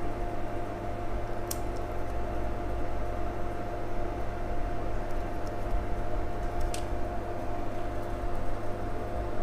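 Steady electrical hum on a repair bench, with a few faint ticks.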